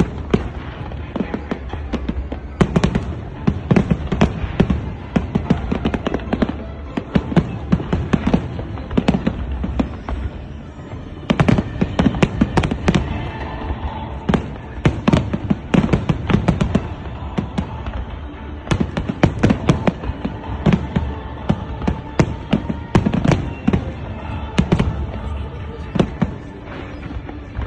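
Large aerial fireworks display: many shells bursting in rapid, overlapping bangs and crackles, with a brief lull about ten seconds in.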